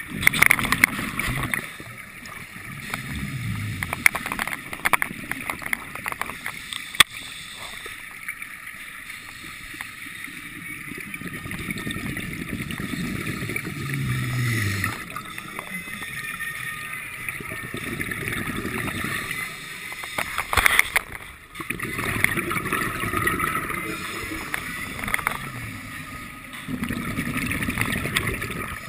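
Scuba regulator breathing heard through a GoPro's waterproof housing: exhaled bubbles rushing and gurgling past in swells every few seconds, with a few sharp knocks.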